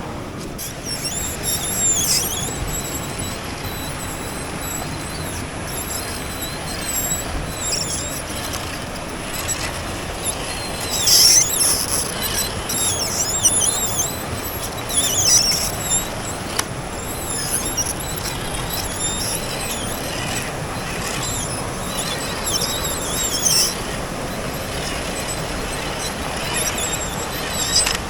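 Radio-controlled car's electric motor and gears whining, the pitch rising and falling in short bursts as the throttle is worked, over a steady rumble of the car running over rough ground.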